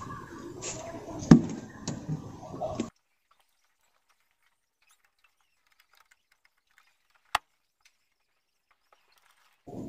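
Cloth wiping and hands knocking about at an open car door window, with one sharp knock about a second in. The sound then cuts out abruptly to near silence, broken only by a faint click, until just before the end.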